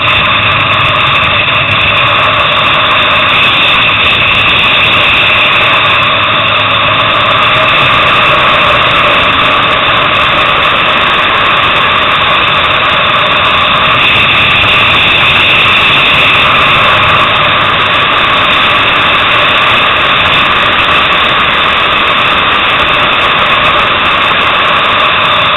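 Onboard sound of a sport motorcycle's engine running hard around a race track, a loud, steady high-revving note that shifts a little in pitch as the bike accelerates and changes gear, with no break.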